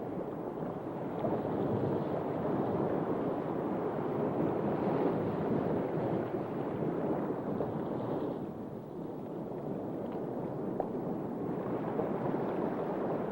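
Steady rushing water noise, like surf or underwater ambience, easing briefly about two-thirds of the way through.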